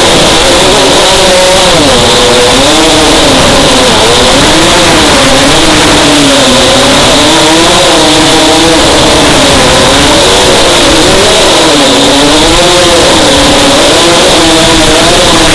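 FPV racing quadcopter's electric motors and propellers whining, the pitch rising and falling again and again as the throttle is worked through the turns, over a loud steady hiss of wind and prop wash.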